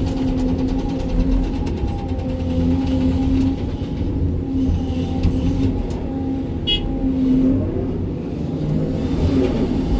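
SANY 305 excavator's diesel engine running steadily under working load, its pitch shifting slightly as the hydraulics work. A brief high-pitched tone sounds about seven seconds in.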